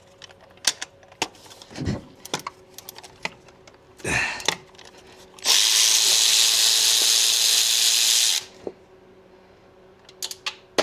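A power tool runs in one steady spell of about three seconds, most likely spinning out a bolt on the engine. Before it come scattered light clicks and taps of hand tools on metal, and more clicks follow after.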